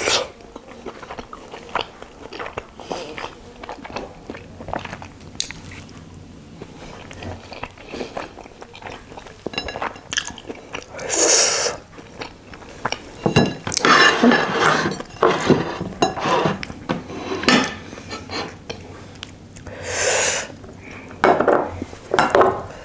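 Close-miked chewing of soft steamed chicken momo dumplings, with many wet mouth clicks and smacks. Several louder airy mouth sounds come about 11, 14 to 16 and 20 seconds in.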